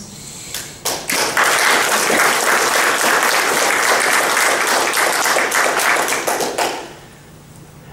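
Audience applauding: clapping starts about a second in, holds steady for about five seconds, then dies away.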